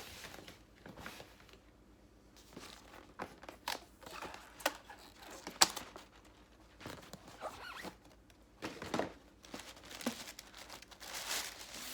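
Shoe box and its paper packaging being opened and handled: scattered rustling and crinkling with occasional sharp clicks and taps, the loudest about five and a half seconds in.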